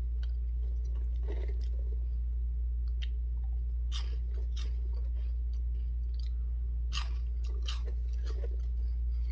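Cheese puffs being chewed close to the microphone, with crisp crunches coming in irregular clusters. A steady low hum runs underneath.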